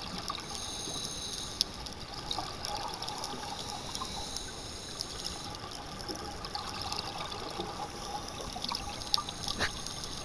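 Scuba regulator bubbles gurgling underwater over a steady watery hiss, with a few sharp clicks: one early and two near the end.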